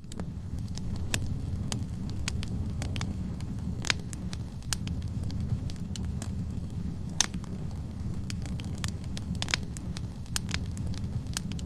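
Wood fire burning in a fireplace: a steady low rumble of flames with irregular crackles and pops from the logs, a few a second, a handful sharper than the rest.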